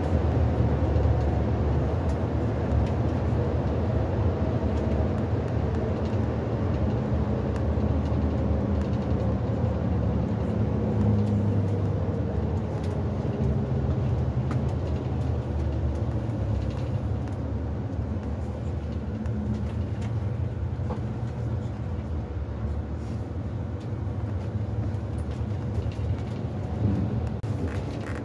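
Cabin noise of a moving coach bus: steady low engine and road rumble, a little quieter in the second half.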